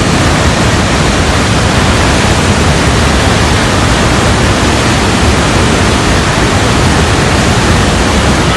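Rushing floodwater of a swollen mountain river in spate: a loud, steady roar of water.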